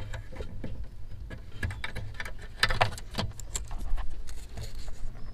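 Small plastic clicks and rattles, irregular, as the high-beam headlamp bulb's wiring connector and its lock clip are worked by hand.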